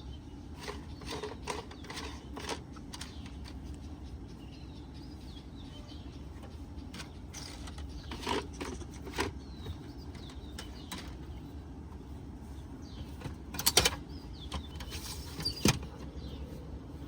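Scattered clicks and knocks of the bed platform's adjustable support column and its fixing ring being handled and set to height, with two louder clacks near the end, over a steady low hum.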